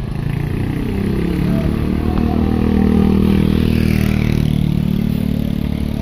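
Large coach's diesel engine pulling under load as the bus creeps through a tight turn, building to its loudest about halfway through and then easing off.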